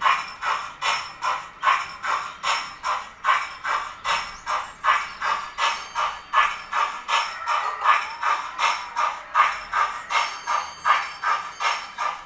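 Steam-locomotive exhaust chuffs from a Youchoos sound file on a Zimo decoder in a 00 gauge S&DJR Johnson 1P model locomotive. The chuffs come steadily, about three a second.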